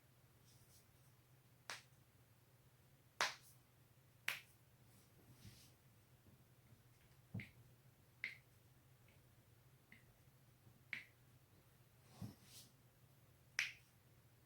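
Joints of the neck and back cracking: about eight sharp single pops, irregularly spaced a second or more apart, over a faint steady low hum.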